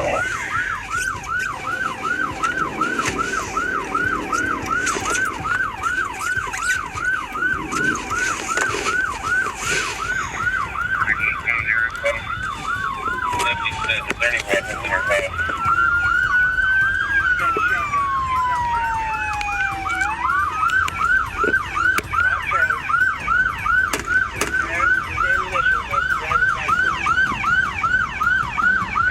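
Police siren on yelp, a fast rising-and-falling warble repeating about three to four times a second. From about twelve to twenty seconds in, a second siren joins with slower, longer up-and-down wail sweeps.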